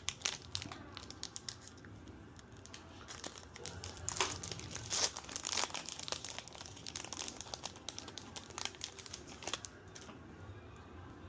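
Foil Pokémon card booster pack being torn open and crinkled by hand, a run of sharp crackles and rustles of the wrapper, busiest about halfway through.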